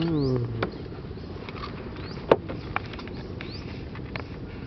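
Outdoor pond ambience with faint, short bird chirps now and then and scattered sharp clicks, one louder click about two seconds in.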